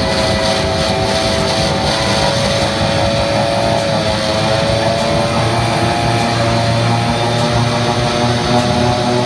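Steady engine-like drone from a simulator ride, with several held tones that sag slightly in pitch and a deeper hum joining about halfway through.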